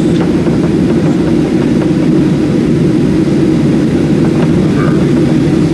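Steady, loud cabin drone of a Boeing 737-700 airliner heard from a window seat: jet engine and airflow noise as a constant low roar with no change in pitch.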